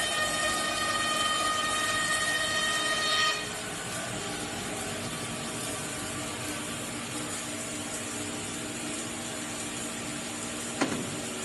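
Vertical-blade carton board cutting machine running steadily while board is fed through it, with a high whine that stops about three seconds in, leaving a lower steady hum. A sharp click near the end.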